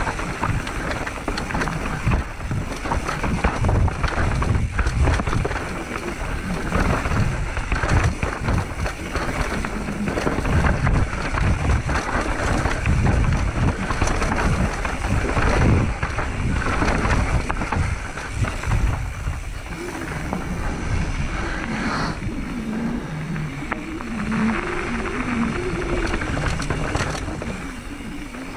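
Mountain bike riding down a trail: a continuous clatter of the frame, chain and tyres over rough ground, with many short knocks over a steady low rumble.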